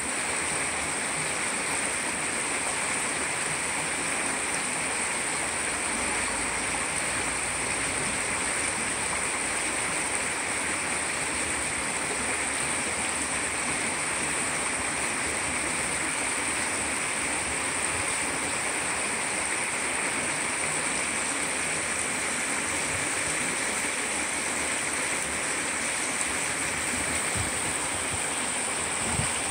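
Shallow river flowing over a stony riffle: a steady, even rush and babble of running water.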